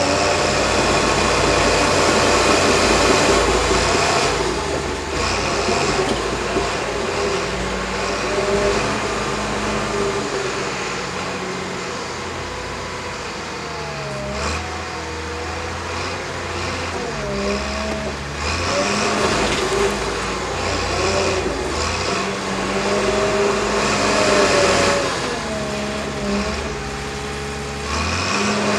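Cat D6K bulldozer's diesel engine running hard under load as it pushes dirt, heard close to its exhaust stack; the engine note dips and rises several times as the load changes.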